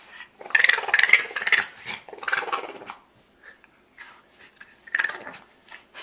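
A small flat-faced dog making cranky grumbling vocal noises while its head is being rubbed, in three rough bursts: a long one near the start, a shorter one around two and a half seconds in, and a brief one about five seconds in.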